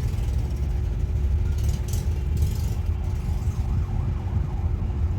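Steady low rumble of background traffic, with a faint wailing siren rising and falling between about three and four and a half seconds in. A few soft clicks come around two seconds in.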